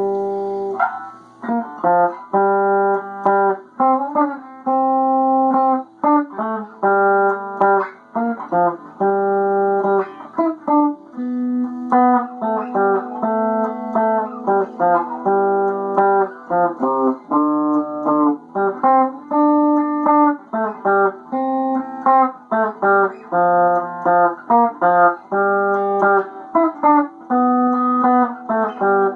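Guitar playing a continuous string of notes and chords, each held briefly and changing about once a second, with short breaks between phrases.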